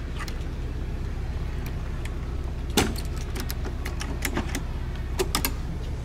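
A sailing yacht's inboard engine idling steadily at the dock, ready to motor off, with a few sharp clicks and knocks of deck gear and lines, the loudest about three seconds in and a quick cluster a little after five seconds.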